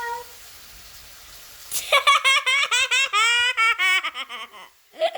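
High-pitched laughter in quick, broken pulses, starting about two seconds in and lasting about three seconds.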